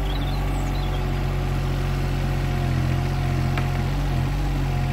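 Digger's diesel engine running steadily, with a faint steady whine above the low drone.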